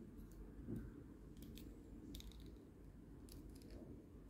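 Faint, scattered clicks of a small plastic transforming-robot toy's joints and parts as its legs are folded and repositioned by hand, with a soft knock a little under a second in.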